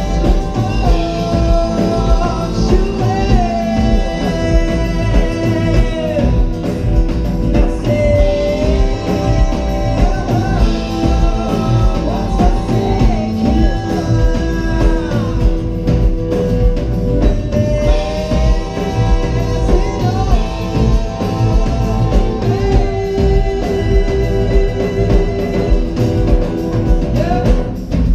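Live rock band playing through the stage PA: electric and acoustic guitars, bass guitar and drum kit, with sustained, bending melody lines over a steady beat.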